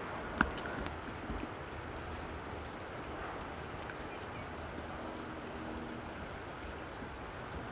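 Steady outdoor background noise with one sharp click about half a second in.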